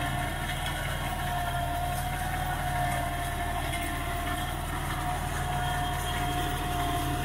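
New Holland 3630 tractor's three-cylinder diesel engine running steadily under load while pulling an 8-foot Jagatjit super seeder, with a steady whine over the engine sound.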